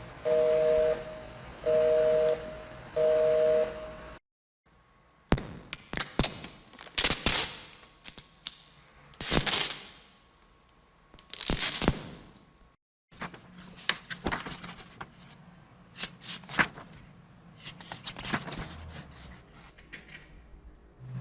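Three separate office sound effects in turn. First, a telephone busy signal beeps on and off. Second, paper is torn and crumpled with sharp rasps and snaps. Third, a run of light clicks and knocks.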